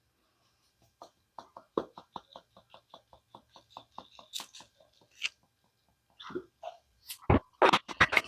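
Seasoning shaker shaken over raw steak pieces: a quick run of small rattling taps, about six a second, for a few seconds, then a few louder knocks near the end.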